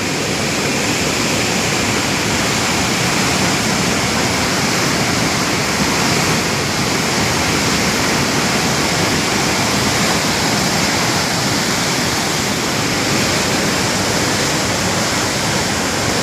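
Swollen floodwater of a river in spate rushing past in a steady, unbroken rush of water.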